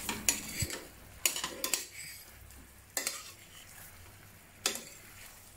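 A metal spoon stirs and turns chicken wings through thick, sticky reduced Coca-Cola glaze in a stainless steel pan. It knocks and scrapes against the pan about five times, over a faint sizzle from the glaze.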